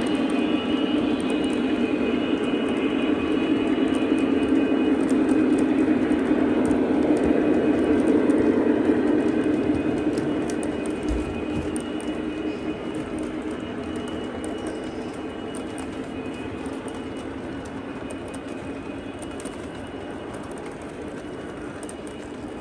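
Lionel Legacy O gauge model diesel locomotives running a freight train: the onboard diesel engine sound from their speakers hums steadily over the rumble of wheels on three-rail track. It grows loudest about a third of the way in as the train passes, then fades steadily as it moves away.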